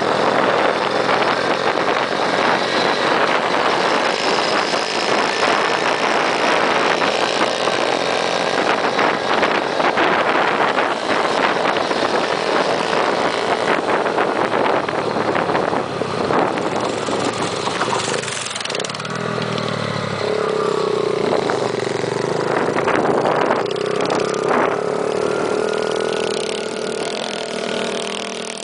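Small motorbike engine running steadily while riding along a dirt track, mixed with a rushing noise. About two-thirds of the way in, a steady hum settles in and holds.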